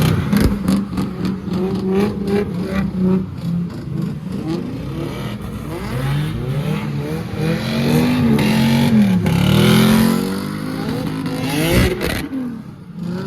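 A car engine revving hard, its pitch rising and falling again and again, with a rapid run of sharp clicks or knocks in the first couple of seconds.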